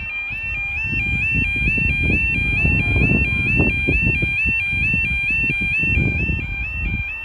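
Level crossing yodel alarm sounding a fast, reedy two-tone warble that steps up and down several times a second, the audible warning that the barriers are coming down for an approaching train. A low rumbling noise runs underneath.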